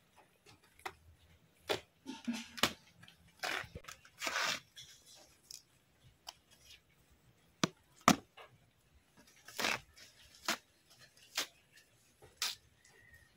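Hands working with vegetables: irregular sharp snaps and taps mixed with short tearing and rustling sounds.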